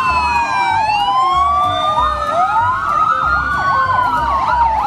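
Several emergency-vehicle sirens sounding together, loud: slow rising and falling wails over a fast warbling yelp. They start and cut off abruptly.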